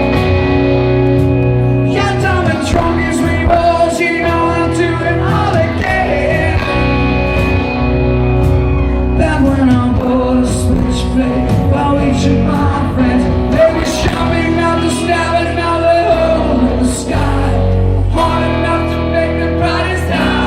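Live rock band playing, with guitars over bass and drums, in a large hall.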